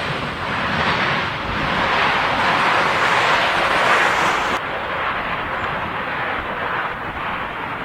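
Jet airliner engines on landing approach, a broad rushing noise that swells to a peak about halfway through, then drops abruptly as the hiss above it cuts off.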